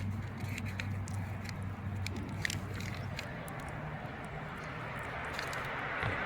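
Street traffic at an intersection: a vehicle engine's low, steady hum for the first few seconds, with scattered small clicks and crackles, then the rush of passing traffic growing louder near the end.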